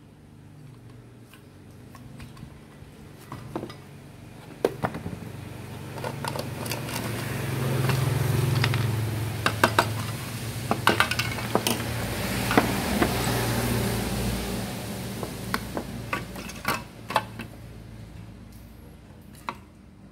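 Clicks and clatter of a plastic steam iron's housing, its sole plate and a screwdriver being handled and knocked on a wooden workbench during disassembly. Under them a low hum with hiss swells through the middle and fades away.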